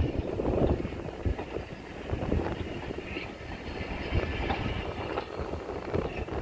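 Heritage railway passenger coaches rolling slowly past on the track beside the platform, a steady low rumble with irregular thumps from the wheels. Wind buffets the microphone.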